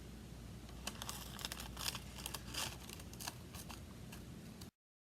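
Paper being handled and cut: a scatter of short crisp crinkles and clicks over a faint hum, which cuts off abruptly near the end.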